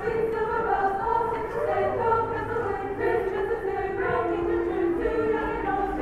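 A choir singing in harmony, several voices holding long notes.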